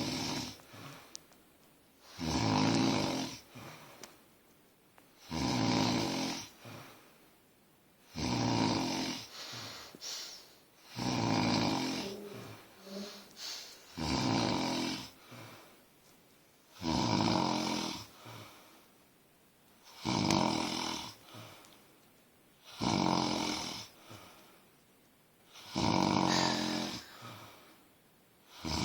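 A sleeping person snoring in a regular rhythm: about ten snores, one roughly every three seconds, each lasting a second or so, with fainter breathing sounds between them.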